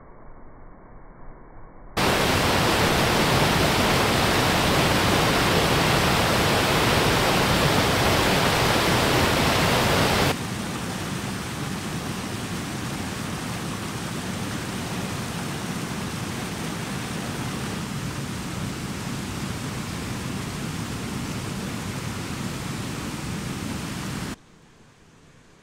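High water pouring over a dam spillway and down through rapids: a steady, dense rushing of water. It cuts in suddenly about two seconds in, becomes somewhat quieter after about ten seconds, and falls away sharply near the end.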